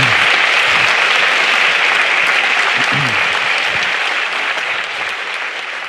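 A large audience applauding: dense, steady clapping that slowly fades near the end.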